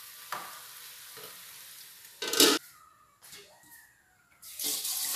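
Chicken frying faintly in a pan, a short loud clatter about two seconds in, then a kitchen tap starts running steadily into the sink near the end.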